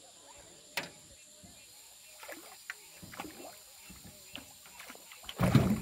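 A hooked catfish fighting at the surface beside an aluminium jon boat: light knocks and rattles, then a loud splash near the end as the fish thrashes.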